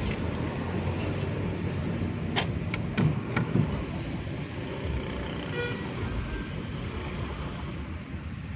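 Steady rumble of passing road traffic, with a few sharp clicks a couple of seconds in and a short vehicle horn toot about halfway through.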